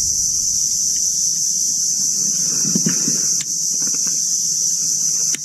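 Steady, high-pitched drone of an insect chorus in the mangroves, unbroken throughout, with a couple of sharp clicks: one about three and a half seconds in and one near the end.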